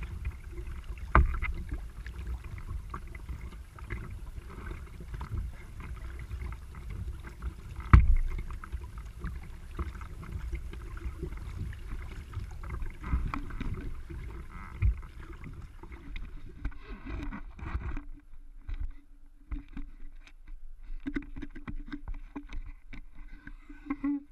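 Kayak paddling: the paddle blades dipping and splashing in the water, with the rush of water and wind buffeting a microphone on the kayak, and two sharp knocks in the first half. The last quarter is quieter, with scattered small splashes and drips over a faint steady hum.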